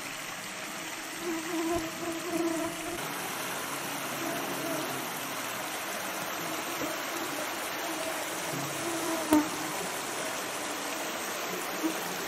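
Shallow river running over a gravel bed, a steady rush of water. A buzzing insect passes in the first few seconds, and there is one sharp click about nine seconds in.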